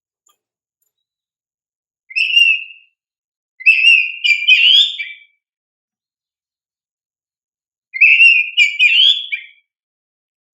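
Oriental magpie-robin (kacer) singing in energetic form: three bursts of loud, clear whistled and warbling phrases, separated by pauses of silence.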